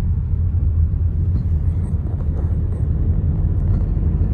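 Steady low rumble of a moving road vehicle heard from inside the cabin: engine and road noise while driving.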